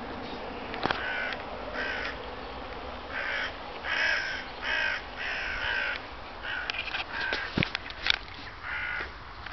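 Crows cawing, a run of about ten short calls roughly one a second, with a few sharp clicks among them.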